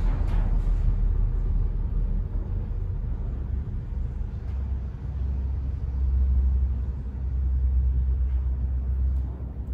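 A low rumble that swells about six seconds in and eases near the end, with a few faint soft touches of gloved hands turning a metal paint can.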